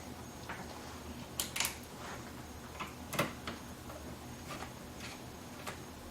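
Irregular light clicks and taps of small parts being handled on an HP Pavilion laptop's plastic case during reassembly. Two sharp clicks come close together about a second and a half in, and the loudest click comes about three seconds in.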